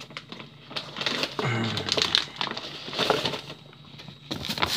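A plastic bag of powder rustling and crinkling as it is picked up and handled, with a brief low murmur of a voice in between.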